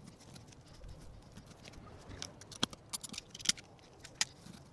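Scattered light clicks and scrapes of small metal parts being handled at a copper pipe stub, with the sharpest ticks coming in the second half.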